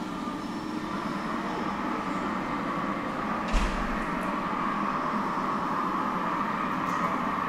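HO-scale (1:87) model train running on the layout, a steady whir that slowly grows louder, with a single knock about three and a half seconds in.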